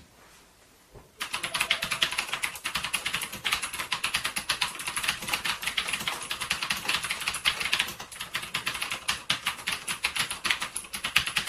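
MStone JAKI keyboard being typed on: a fast, continuous run of key clicks that starts about a second in, easing briefly around two thirds of the way through before picking up again.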